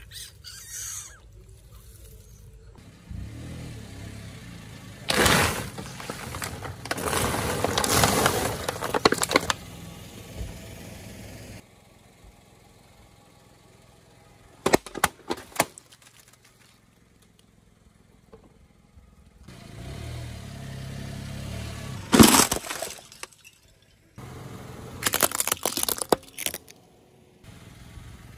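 Car tyres rolling over and crushing objects on concrete: several bouts of cracking, crunching and shattering of glass and plastic, the loudest a sharp crack about 22 seconds in, over a low rumble from the car.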